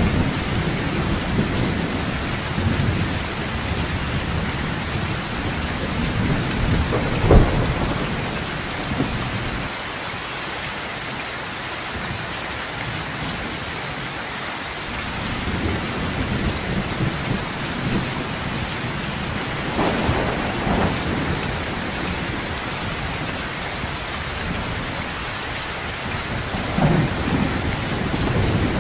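Heavy, steady rain with rolling thunder; a sharp thunderclap cracks about seven seconds in, and further rumbles come later on.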